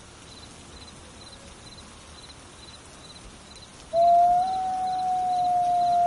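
A wolf howling: one long, steady, high note starts abruptly about four seconds in and holds level. Faint chirps repeat about twice a second in the background.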